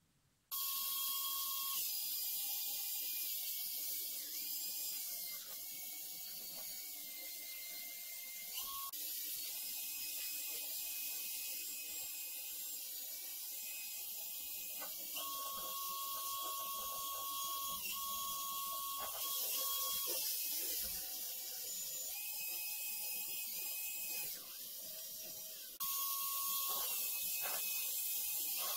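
Cordless drill spinning a felt buffing wheel against a black telephone housing: a steady motor whine over a rubbing hiss, starting about half a second in, its pitch stepping up and down several times as the load on the wheel changes.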